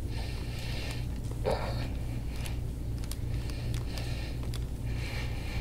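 A steady low hum, with a person's short, breathy falling sound, such as an exhale or groan under deep massage, about one and a half seconds in.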